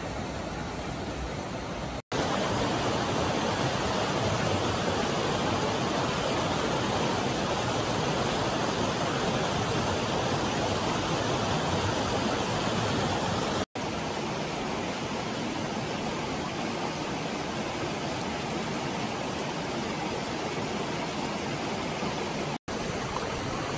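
Steady rush of river water flowing through a gorge, in several takes joined by abrupt cuts about 2, 14 and 23 seconds in; the stretch between the first two cuts is the loudest.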